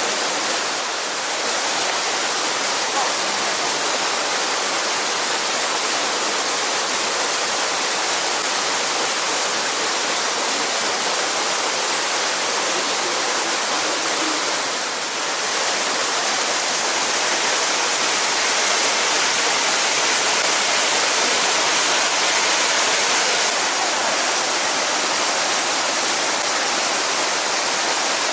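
Steady rush of water from a mountain waterfall and stream, loud and even, dipping briefly about a second in and again about halfway through.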